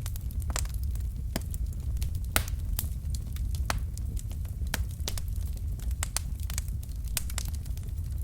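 Wood fire in a fireplace burning with a steady low rumble and irregular sharp crackles and pops from the logs, a couple of louder pops about two and a half seconds in.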